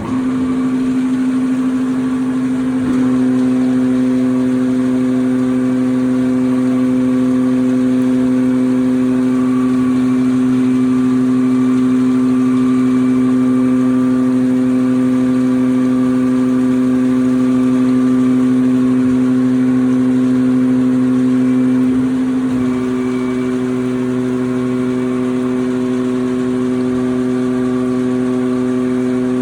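Poclain hydraulic motor running steadily under test, a constant pitched hum that starts abruptly. Its tone shifts slightly about three seconds in and again about 22 seconds in, where it gets a little quieter.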